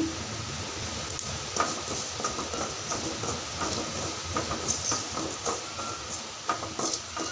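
Perforated wooden spatula scraping and stirring freshly added coriander powder around a metal pan, with small irregular scrapes and taps over a steady light sizzle of spices dry-frying.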